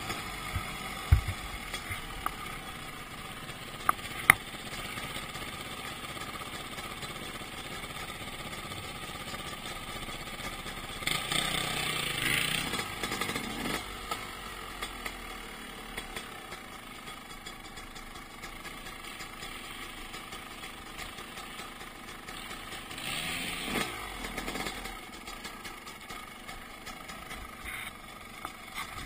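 Suzuki RM250 two-stroke single-cylinder dirt bike engine running while riding, with two louder bursts of throttle that rise and fall, about eleven and twenty-three seconds in. A few sharp knocks come in the first few seconds.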